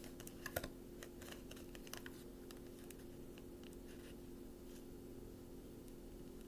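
Quiet room tone with a steady low hum, and a few faint clicks and taps in the first couple of seconds.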